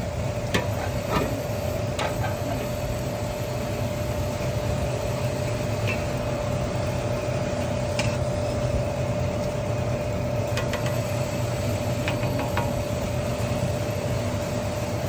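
Electric motor of a stainless-steel stirring cooking kettle running steadily, a low hum with a steady whine over it, while the stirring arm turns through the mixture; a few sharp clicks come through now and then.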